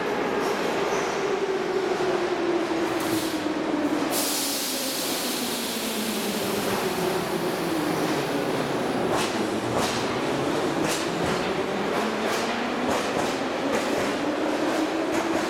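Em-type metro train departing: a sudden burst of air hiss about four seconds in as the doors shut, then the traction motors' hum rises in pitch as the train accelerates. From about nine seconds in, the wheels click over rail joints, faster and faster.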